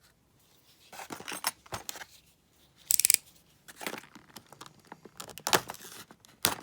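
A lock's retail packaging being opened and handled: irregular rustling and clicking, with a short sharp tearing sound about three seconds in.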